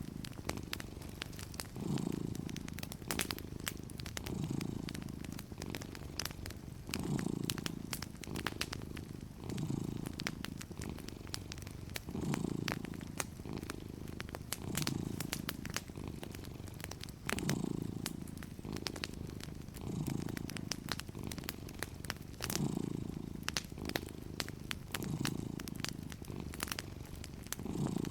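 A cat purring steadily, swelling and easing about every two and a half seconds with its breathing, while a wood fire crackles with sharp scattered pops.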